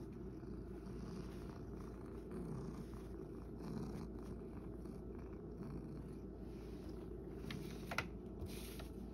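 House cat purring steadily, rising and falling in slow waves with its breathing. A single brief click about eight seconds in.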